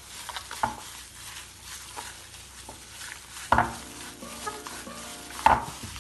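Gloved hands mixing and squishing mashed sweet potato with raw eggs in a glass bowl, with a few sharp slaps, the loudest about three and a half seconds in and near the end.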